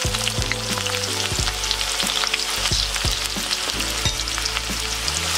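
Chopped onions frying in hot oil in a kadhai: a steady, dense sizzle with fine crackling.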